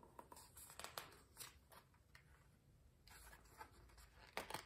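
Faint rustling and light ticks of a hardcover picture book's paper pages being handled, with a slightly louder rustle near the end as a page is turned.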